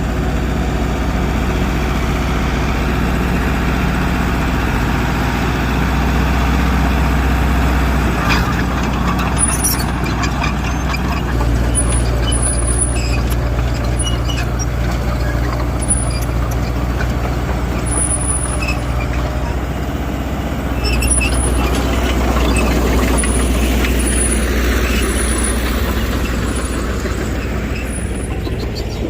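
Heavy diesel earthmoving machinery running continuously, its engine note shifting a few times. Short high-pitched squeaks and clinks recur through most of it.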